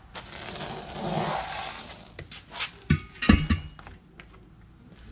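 Semi truck tire being handled just after coming off its steel rim: a rubbing, scraping noise for about two seconds, then a few heavy thuds about three seconds in as it is set down flat on concrete.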